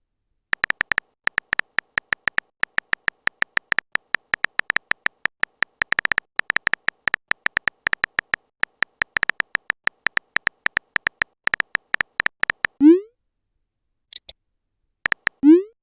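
Phone keyboard typing sound effect: rapid short ticks, several a second, for about twelve seconds. Then a short rising pop, a faint high blip, and a second rising pop near the end, like chat-app message sounds.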